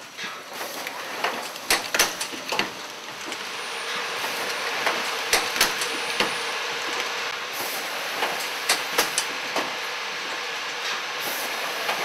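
Automated assembly machine running: irregular sharp clacks of pneumatic actuators and grippers moving parts, with short bursts of compressed-air hiss every few seconds over a steady hiss.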